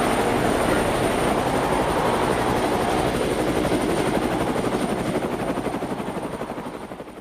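A steady, rapidly pulsing mechanical rumble with a faint high whine, fading out over the last couple of seconds.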